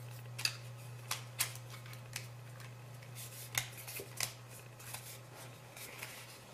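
Two-piece plastic case being pressed and snapped onto an iPhone 3G: irregular light clicks and plastic rubbing, over a steady low hum.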